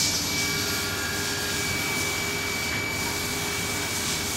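Okuma MA-50HA machining center running: a steady mechanical rushing hiss with a constant high whine and a lower hum, the hiss swelling briefly at the start and again near the end.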